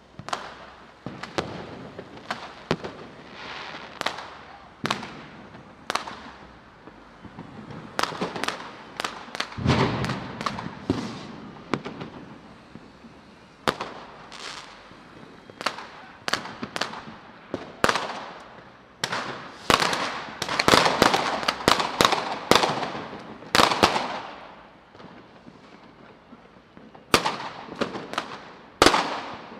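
Battle sound effect of gunfire: irregular echoing shots, single and in quick clusters, with the densest volley between about twenty and twenty-four seconds in.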